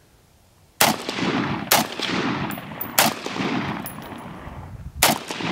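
Four gunshots during a timed shooting drill, unevenly spaced over about four seconds, each followed by a long fading echo.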